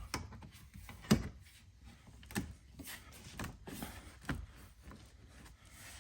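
Composite rock guard being pressed and snapped into place against a car's wheel arch: one sharp knock about a second in, then a few softer knocks and taps.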